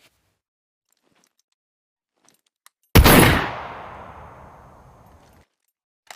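Improvised, home-made shotgun sound effect: a single sudden loud blast about three seconds in, with a long fading tail that is cut off sharply after about two and a half seconds. A few faint clicks come before the blast.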